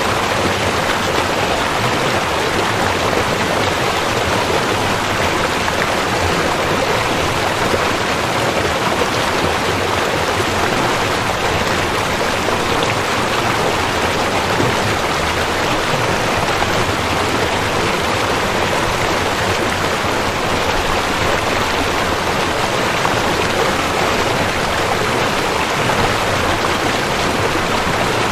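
The Kitimat River rushing steadily, an even unbroken water noise with no separate events standing out.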